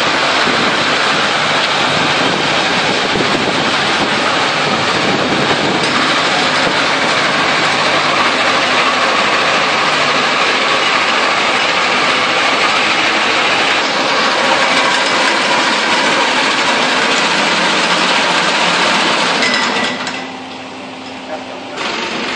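Walk-behind rice reaper running on the spot, its small engine going steadily at speed with the cutter mechanism working, a loud, dense mechanical running noise. About two seconds before the end it cuts to a quieter, steady engine hum from a forklift idling.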